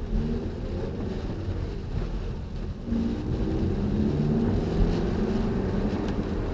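Nissan X-Trail (NT30) driving, heard from inside the cabin: a steady low rumble of engine and road noise, with the engine note getting louder and a little higher about three seconds in.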